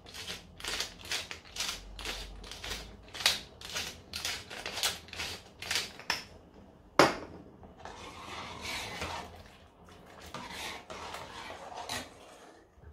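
Wooden pepper mill being twisted by hand, grinding in a steady run of crunchy clicks, about two a second. About seven seconds in there is a single sharp knock, followed by a ladle stirring soup in a stainless steel pot.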